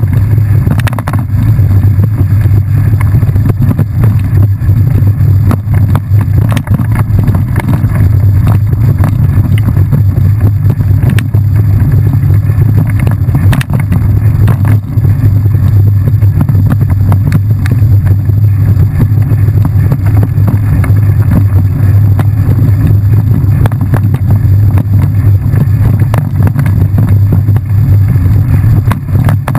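Steady loud low rumble of wind buffeting and trail vibration on a camera carried on a bike riding a dirt trail, with scattered short knocks and rattles from bumps.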